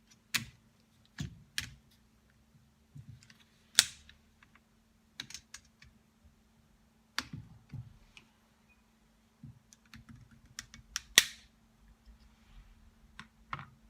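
Irregular clicks and knocks of hard parts and hand tools being handled on a workbench, about a dozen spaced unevenly, the sharpest about four seconds in and near eleven seconds. A faint steady hum lies under them.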